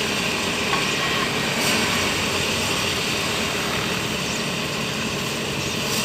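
Motorised rice thresher running steadily, a constant mechanical drone with a rattling hiss as it threshes paddy.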